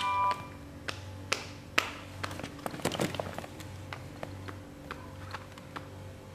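Scattered light clicks and taps of a smartphone being handled and its screen tapped, over a low steady hum.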